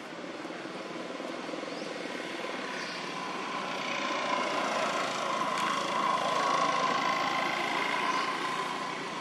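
A steady engine drone that swells through the middle and eases off near the end, with a few faint short high chirps over it.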